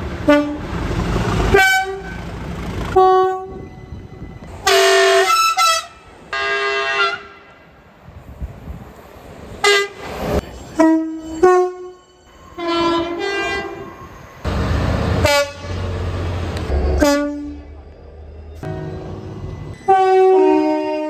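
Train horns sounded over and over: about a dozen separate blasts, short and long, many in pairs of a higher and a lower note. Between them, passing trains make a rushing rumble.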